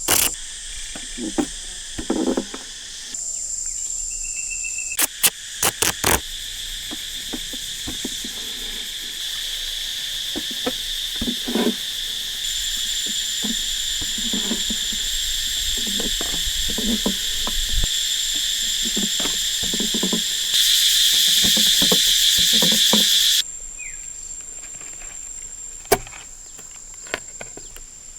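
Insect chorus: a steady, high-pitched drone that jumps in level and character several times and is loudest for a few seconds past the two-thirds mark. Short soft knocks come every second or two underneath.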